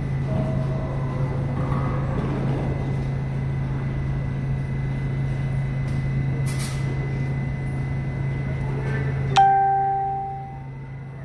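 A New York City subway G train standing at the platform, its equipment giving a steady low hum. A brief hiss comes about six seconds in, and near the end a sudden sharp strike sets off a ringing tone that fades over about a second.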